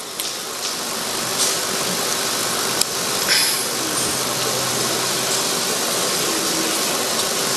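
Steady background noise: an even hiss with a faint low hum underneath and no speech.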